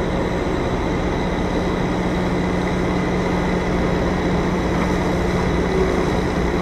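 Semi truck's diesel engine running at a steady idle, a constant low hum and rumble, while the rig creeps slowly in reverse and comes to a stop.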